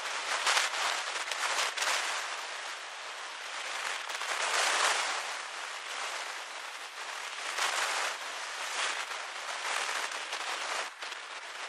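Class 66 diesel locomotive hauling a loaded stone train slowly over pointwork: a rush of wheel-and-rail noise with crackling, swelling and easing several times, loudest just after the start and around five seconds in.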